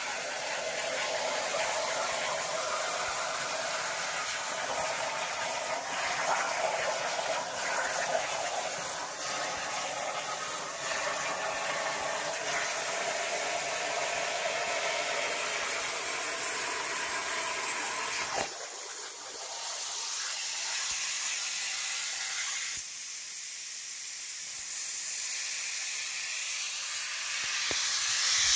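Hypertherm Powermax 65 plasma torch cutting 1/8-inch aluminum on a CNC table, a steady rushing hiss. About two-thirds of the way through the arc cuts off suddenly, and a softer, higher air hiss carries on.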